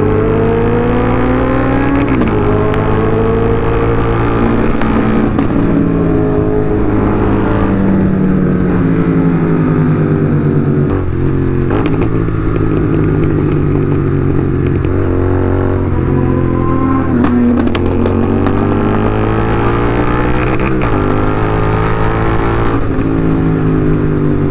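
Motorcycle engines on the move: a Royal Enfield GT650 parallel twin and a Suzuki Hayabusa inline-four riding close together. The pitch climbs under throttle and drops at each gear change, several times over. The Hayabusa's engine is loud enough to drown out the GT650.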